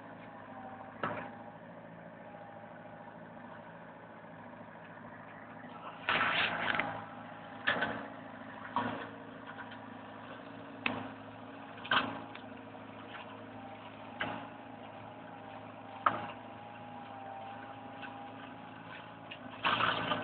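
Komatsu PC50MR mini excavator with an Osmaq CRM 120 mulching head running steadily, a constant pitched hum of engine and spinning rotor. It is broken by about nine sharp, loud bursts as the head bites into brush, the longest about six seconds in and another near the end.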